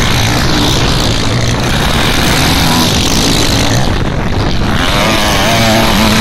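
Motocross bike engines revving hard as the bikes ride past close by on a dirt track, with one engine rising in pitch near the end.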